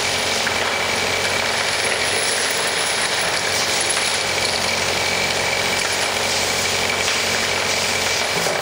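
Vibratory conveyor running, its vibrating deck shaking a mass of ceramic tiles along so they clatter against each other and the pan in a steady, dense rattle over a constant machine hum.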